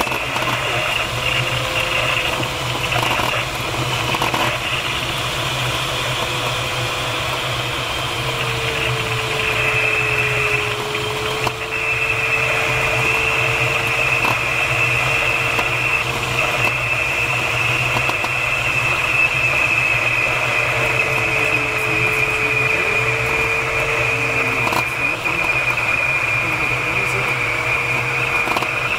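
Steady rush of airflow around the canopy inside a DG Flugzeugbau DG-1001 glider's cockpit in descending flight, with a thin steady whistle-like tone underneath that drifts slightly lower in pitch and back up twice.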